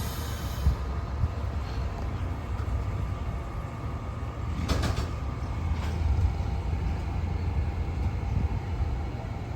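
A train at a station platform with a steady low rumble. About five seconds in there is a short hiss, then a fainter brief sound about a second later.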